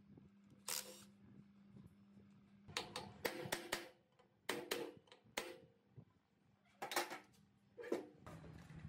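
Sharp metal-on-metal knocks on the end cover of an old three-phase electric motor, struck to loosen it from the housing. The knocks come in uneven groups, about a dozen in all, each ringing briefly.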